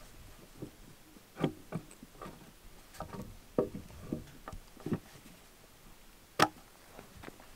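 Irregular wooden knocks and clunks as a heavy eucalyptus log beam is shifted and fitted onto its wooden post, with one sharper, louder knock near the end.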